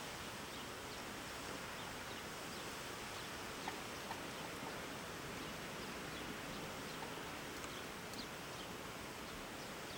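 Steady rushing noise of blizzard wind, with a few faint ticks.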